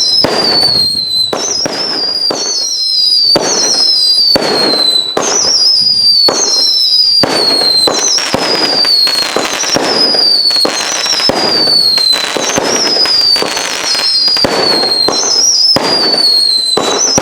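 A multi-shot consumer firework cake firing shot after shot, each with a whistle that falls in pitch, roughly one or two a second, over dense crackling and pops.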